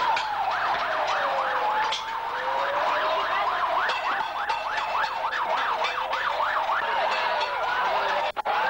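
Several emergency-vehicle sirens sound at once. One runs a fast yelp of about three to four rising sweeps a second, over slower wailing tones. The sound cuts in suddenly and drops out briefly near the end.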